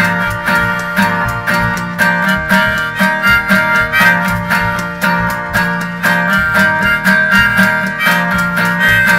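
Acoustic guitar strummed in a steady rhythm while a harmonica plays sustained melody notes over it.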